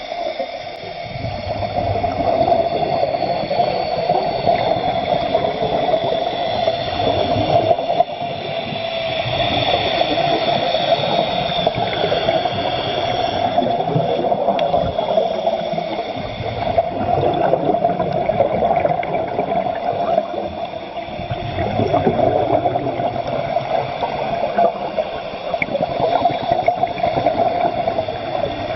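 Continuous rushing, gurgling water noise that swells and eases every several seconds.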